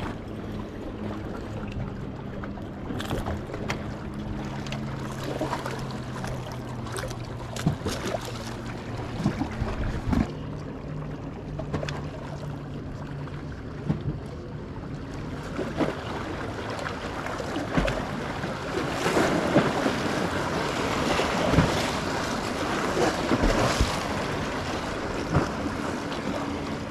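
Lake water lapping and wind on the microphone, growing louder about halfway through, with scattered clicks and knocks from handling the fishing rod, reel and tackle. A low steady hum runs through the first half.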